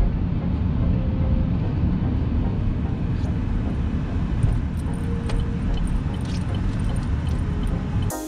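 Steady low rumble of a car driving, heard from inside the cabin: tyre and engine noise, with a few faint light ticks.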